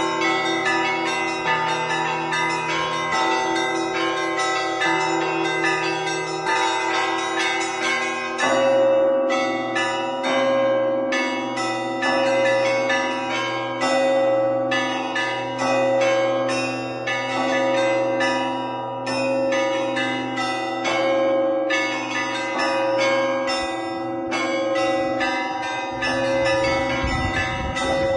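Russian Orthodox church bells rung by hand as a peal (zvon): fast, dense strokes of the small bells over steadily ringing larger bells. About eight seconds in the pattern changes, and a mid-pitched bell is struck about once a second under the rapid chiming.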